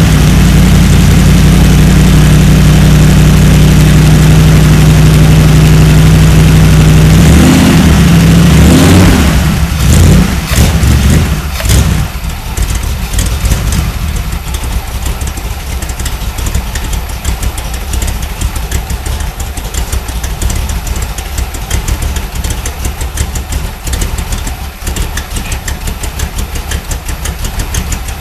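Carbureted 327 small-block Chevy V8 with side pipes running loudly on a cold start: a steady fast idle, a brief rev about nine seconds in, then it drops to a lower, less even idle for the rest of the time.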